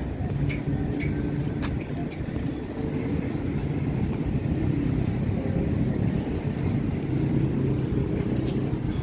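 Steady low engine rumble with a faint hum, and a few faint ticks.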